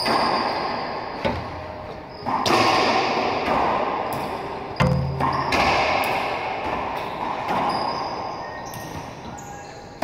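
Racquetball rally: the ball cracking off racquets and the court walls, a sharp hit every second or two, each leaving a long ringing echo in the enclosed court.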